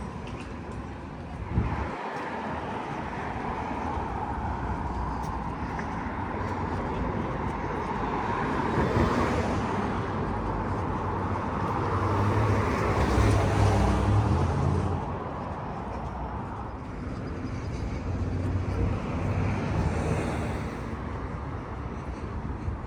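Road traffic ambience: a steady wash of passing cars, with vehicles swelling louder about nine seconds in and again around twelve to fifteen seconds.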